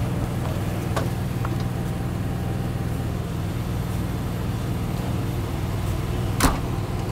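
RV engine running with a steady low hum while the vehicle parks, with a couple of light clicks and one sharp knock a little over six seconds in.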